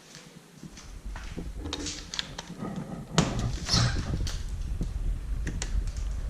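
A door opening with sharp clicks and knocks, the loudest about three seconds in. From about half a second in, wind rumbles on the microphone.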